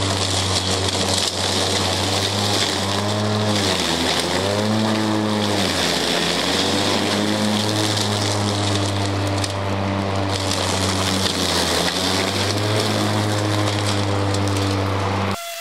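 Stiga Twinclip 950 cordless battery lawnmower running, its electric motor and twin blades humming steadily over a hiss as it chews through a big pile of dry leaves. The pitch sags and recovers several times, around three to six seconds in and again near twelve seconds, as the motor slows under the load of leaves. The sound cuts off suddenly near the end.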